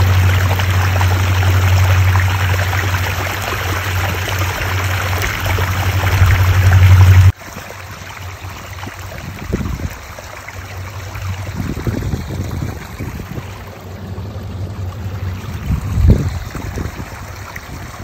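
A small creek rushing over a rocky riffle, loud and steady. About seven seconds in it cuts suddenly to a quieter, gently trickling stretch of the same creek, with a few low rumbles.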